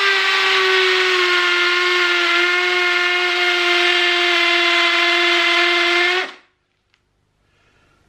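DeWalt 18V cordless hammer drill drilling into hard concrete with a masonry bit in hammer mode: a loud, steady, ear-piercing whine that stops abruptly about six seconds in. The clutch-type hammer action makes plenty of noise and vibration but does not strike hard enough to make much headway, so the bit is only heating up.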